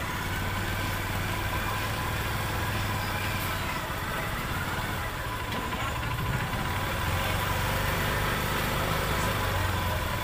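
An engine idling steadily with a low, even hum over a constant background of street noise.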